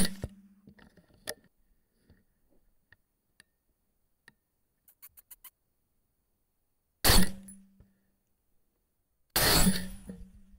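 A loud bang right at the start, another about seven seconds in, and a third near the end that trails into about a second of rumbling noise, with faint scattered clicks between.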